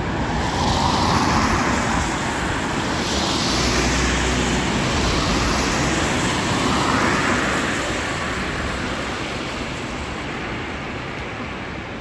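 Road traffic on a wet street: a vehicle passes close with a rushing tyre hiss that swells and then fades over the second half, over the low running of engines.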